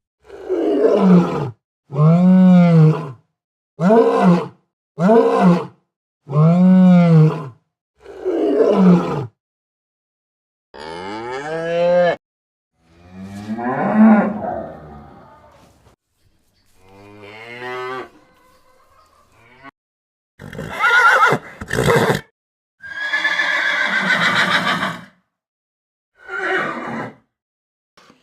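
Recorded animal calls from several different animals, one short clip after another with brief silences between. First come about seven similar arched calls, then a few longer, drawn-out calls, then harsher, noisier calls near the end.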